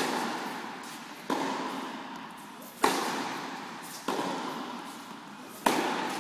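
Tennis ball struck by a racket in a baseline rally: three loud, sharp strikes about three seconds apart, with softer knocks between them, each echoing around a large indoor court hall.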